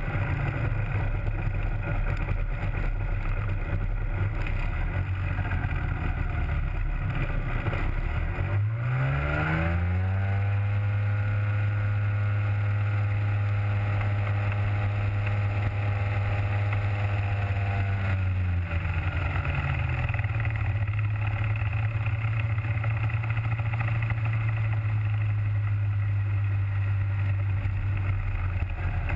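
Rotax 503 two-stroke twin engine of a Hy-Tek Hurricane 103 ultralight, turning a three-blade composite propeller while taxiing. It runs at low throttle, revs up sharply about a third of the way in, holds high revs for about eight seconds, then throttles back to a steady lower run.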